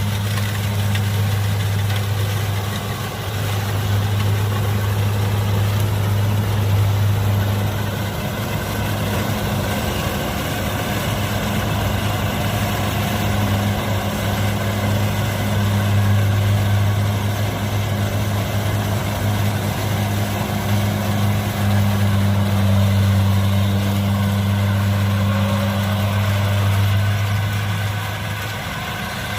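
Kubota DC70 combine harvester's diesel engine running steadily with a deep, even hum and the noise of its machinery, swelling and easing slightly as it works.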